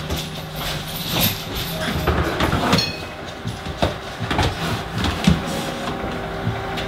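Microwave oven running with a steady hum, with scattered knocks and clatters of things being handled.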